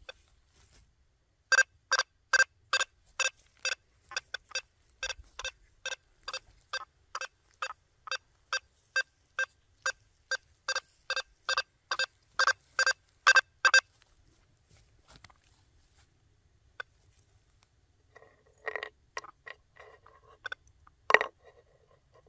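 Quest V80 metal detector on a 9-inch coil giving a rapid run of short, same-pitched beeps, about two or three a second for some twelve seconds, as it responds to targets on a nailboard. After a pause come a few fainter, irregular sounds and one sharp, loud one near the end.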